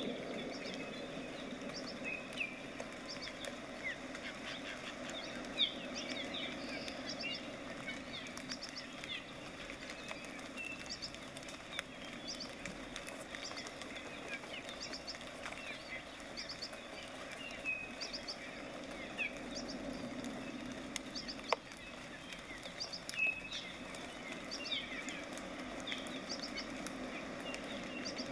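Short high chirps repeat about once a second over a steady low hum, with one sharp tap about three-quarters of the way in.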